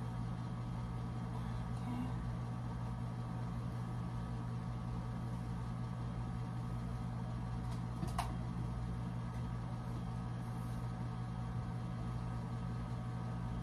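Steady low electrical hum of a running ceiling fan's motor, with a brief click about eight seconds in.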